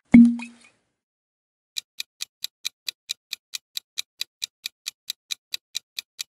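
Quiz countdown timer sound effect: a short low thud as the question changes, then clock-like ticks at about four to five a second while the answer timer runs.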